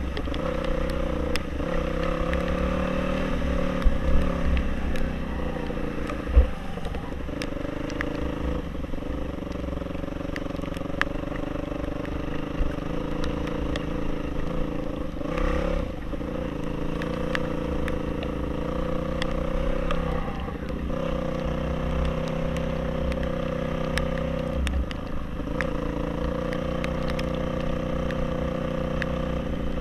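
Off-road motorcycle engine running under way, its pitch rising and falling gently as the throttle changes, with a constant low rumble beneath and a few sharp knocks from the bike jolting over the trail.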